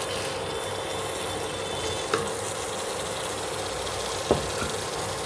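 Onion-tomato masala sizzling steadily in a nonstick kadhai as fried paneer cubes are added and stirred in with a wooden spatula, with two light knocks about 2 and 4 seconds in, over a faint steady hum.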